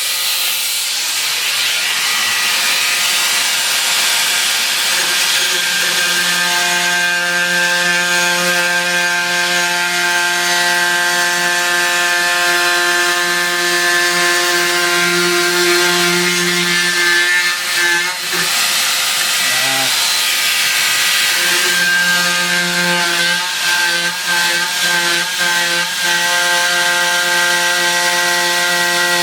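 A power tool cutting into the drywall, its motor giving a steady buzzing hum that starts about six seconds in, cuts out briefly about two-thirds of the way through, then runs again to the end. Before it starts there is a rasping, sawing noise.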